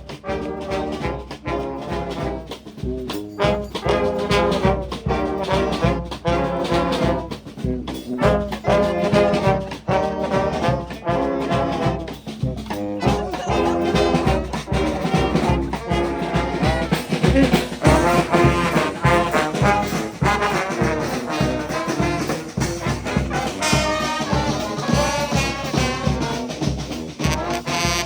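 Brass band playing live, several horn parts sounding at once over a steady beat.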